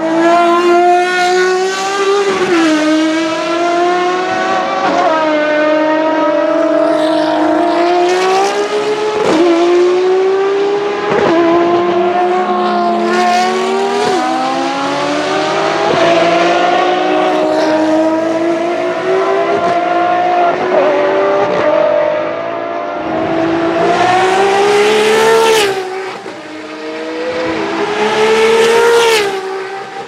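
Ferrari XX-programme track cars (FXX, 599XX, FXX K) with V12 engines running hard at racing speed. The engine note climbs through each gear and drops sharply at every upshift, about a dozen times. It gets louder as cars pass close near the end.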